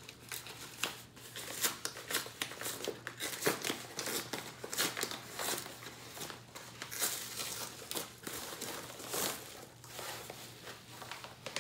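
White plastic poly mailer crinkling and crackling in the hands as it is pulled open, irregular and continuous.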